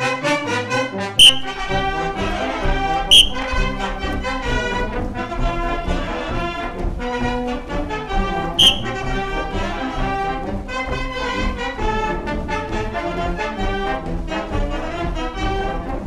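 Brass band of trumpets, trombones, euphonium and tuba playing a lively march for a carnival dance. A low drum beat comes in about a second in, and three loud, sharp percussive hits stand out, about 1, 3 and 8.5 seconds in.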